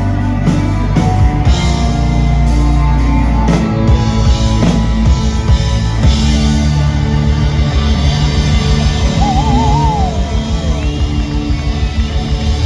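Rock band playing live in an instrumental passage, with guitar, bass and drums; a wavering lead line comes in about nine seconds in.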